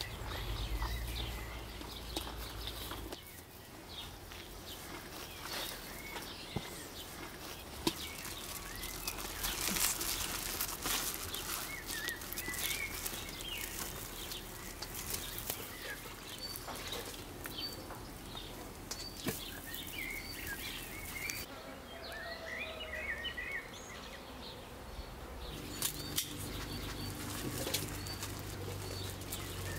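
Small birds chirping in short scattered calls, over rustling and handling noises of a cloth sack being tied and held.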